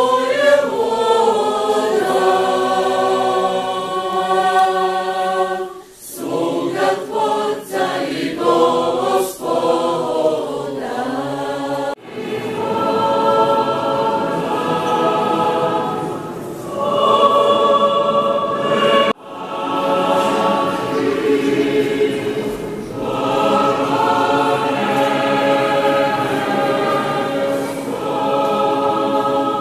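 Orthodox church choir singing unaccompanied chant, several voices holding long notes; the singing breaks off abruptly three times and resumes on a new passage.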